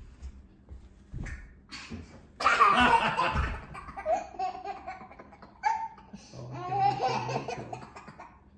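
A young child laughing hard during a chasing game. The loudest burst comes about two and a half seconds in, followed by shorter laughs.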